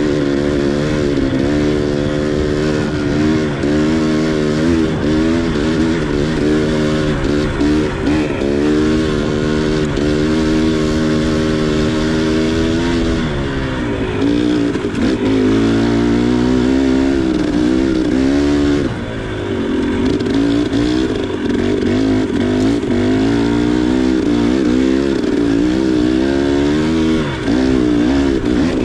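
2019 KTM 300 XC two-stroke single-cylinder dirt bike engine running under way, its pitch rising and falling constantly with the throttle. The pitch drops away briefly about halfway through and again a few seconds later as the throttle is rolled off, then picks up again.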